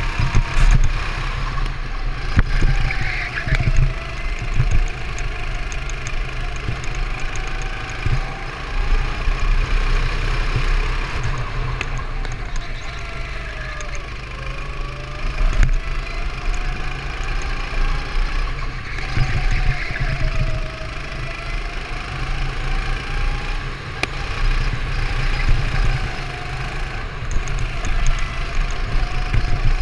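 Go-kart engine running at racing speed, its pitch repeatedly falling and rising again, over a constant low rumble.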